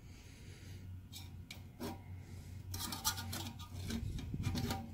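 Steel wire scraping and clicking against a small metal pail of used motor oil as the bolt hung on it is moved in the oil quench: a few light clicks, then a run of scratchy rattles over the last two seconds. A steady low hum runs underneath.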